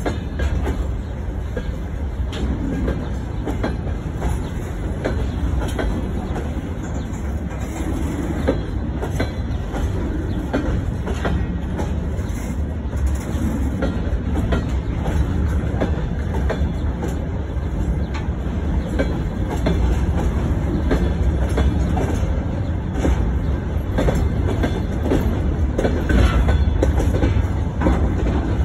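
Freight train of open gondola wagons rolling past: a steady low rumble of steel wheels on rail, with repeated clicking as the wheelsets cross rail joints.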